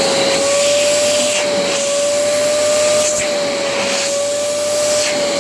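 A 2200-watt barrel vacuum cleaner running at full suction: a steady, loud motor whine over rushing air.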